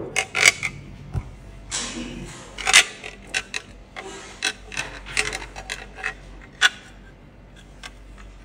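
Raspberry Pi CM5 IO board knocking and scraping against the sheet-metal base of its IO case as it is fitted into place: a series of sharp clicks and taps, with a brief scrape about two seconds in and the loudest click near three seconds.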